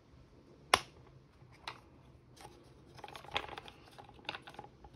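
A sharp click about a second in, then a few lighter clicks and plastic ticks as a pressure sensor, its pins already cut, is pushed out of the plastic housing of a DQ381 DSG gearbox control unit.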